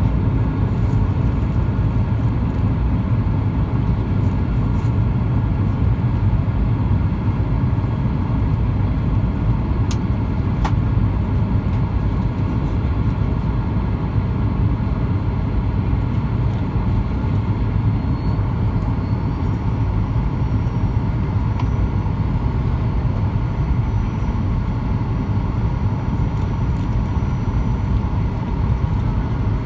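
Steady cabin noise inside a Boeing 737-900ER in flight on approach: a deep, even rumble of airflow and engines. Two light ticks come about ten seconds in, and a faint high whine rises and then holds from a little past halfway.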